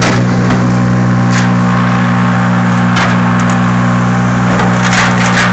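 Wood chipper running loud and steady, with a few sharp cracks and snaps as branches are fed in; the branches are getting stuck in the feed.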